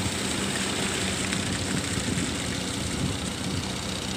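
Kobelco hydraulic excavator's diesel engine running steadily with a low hum as the machine works, lowering its bucket into the water to dig out mud.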